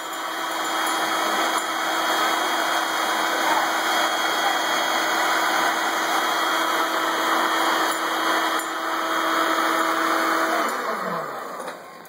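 Vacuum cleaner running steadily with a constant hum over a rushing noise, then switched off near the end, its motor winding down in a falling whine.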